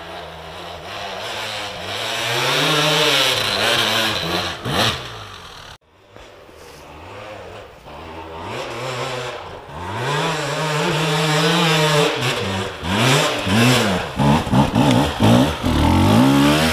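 Off-road dirt bike engines revving hard, the pitch rising and falling again and again as the bikes are throttled up a slippery climb. The sound breaks off abruptly about six seconds in and picks up again, with quick, loud blips of throttle near the end as a bike comes up close.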